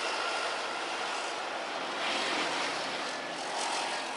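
Jet airliner's engines roaring as a steady rushing noise during takeoff, easing slightly near the end.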